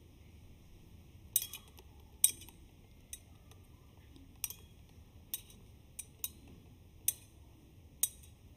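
A metal thurible (censer) being swung on its chains, clinking sharply about nine times at roughly one-second intervals as the priest incenses the Gospel book before the reading. The second clink is the loudest.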